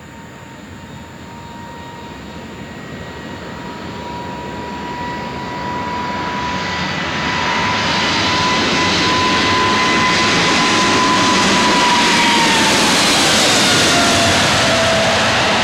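Boeing 777 jet engines at takeoff power, growing steadily louder as the aircraft approaches, with a high engine whine that drops in pitch as it passes.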